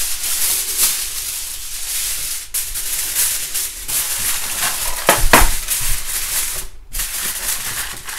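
Aluminium foil crinkling and crackling as a sheet is spread over a baking tray and pressed down around its edges, with a louder crumple about five seconds in.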